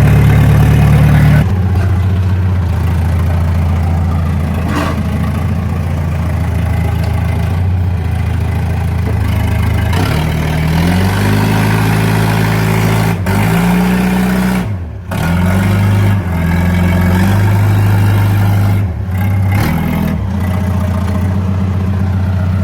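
Forklift engine running under load, its pitch rising and falling several times in the middle as it is revved up and eased off, with one brief drop about two-thirds of the way through.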